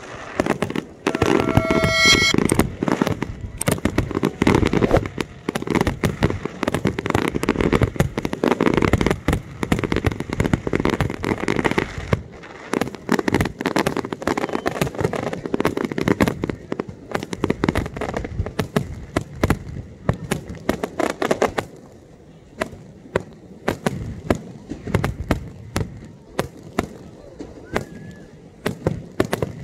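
Aerial fireworks display: shells bursting in rapid succession with booms and crackle. The bangs thin out to sparser pops about two-thirds of the way through. A brief high whistle sounds about a second in.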